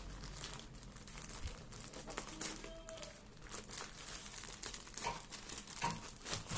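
Plastic courier mailer bag crinkling and rustling as it is cut open with scissors and pulled apart, in irregular short crackles.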